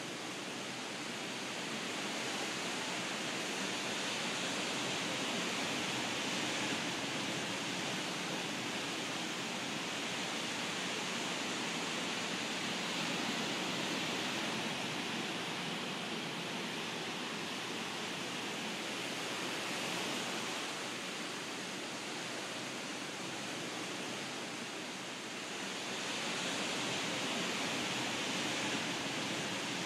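Steady rush of ocean surf washing onto a beach, swelling and easing slowly.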